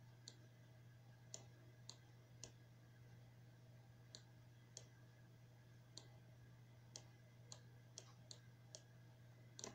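Computer mouse clicking: about a dozen short, sharp, faint clicks at irregular intervals, over a steady low hum.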